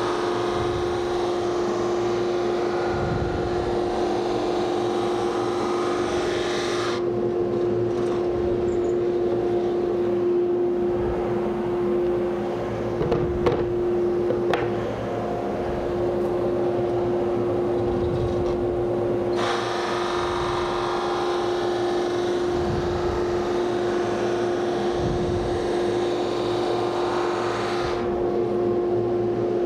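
Conveyor-fed sander running with a steady motor hum while a wooden raised-panel cabinet door is sanded. A dense rushing sanding noise comes in for the first several seconds, drops away, and returns for a long stretch after the middle as the panel passes under the sanding head. A few knocks come about halfway through as the panel is handled.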